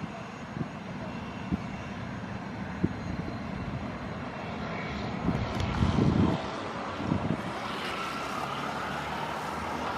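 Boeing 737-800's CFM56-7B turbofan engines running at taxi power as the jet rolls slowly by: a steady jet hiss with a faint whine that rises slightly near the end. A few low thumps break in about five to seven seconds in.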